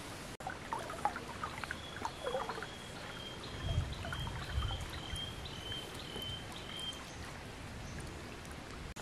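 River water lapping and trickling, with small splashing sounds in the first couple of seconds and a low rumble near the middle. A thin high-pitched call holds steady for about five seconds, pulsing a few times a second.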